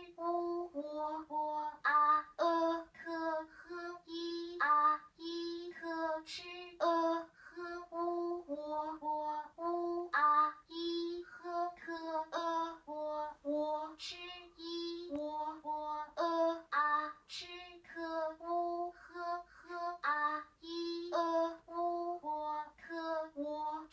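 Short recorded voice syllables, the PinYin sounds of an auditory brain-computer-interface speller, played one after another through loudspeakers as stimuli. They come at about two to three a second, each held at a high, near-steady pitch.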